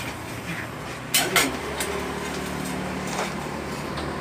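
Metal objects clinking: two sharp clinks about a second in and a lighter knock near three seconds, over a steady low hum.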